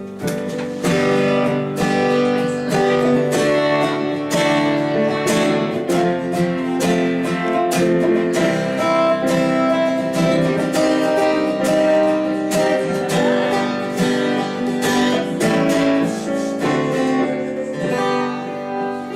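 Acoustic guitar strumming chords steadily in a slow instrumental break between sung verses of a ballad.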